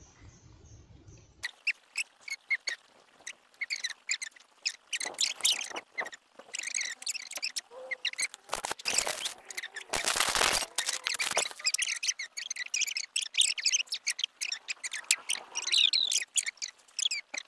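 Many small birds chirping and twittering together in a busy chorus. Short gusts of rushing noise come about five seconds in, again around nine seconds, and loudest a little after ten seconds.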